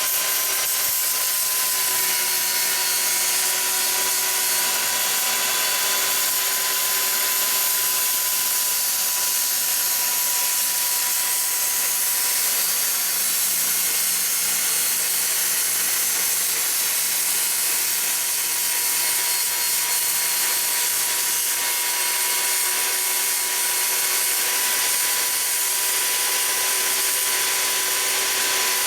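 Electric power saw running at a steady speed with a constant motor whine over a hiss, cutting through the wood door. It spins down, falling in pitch, at the very end.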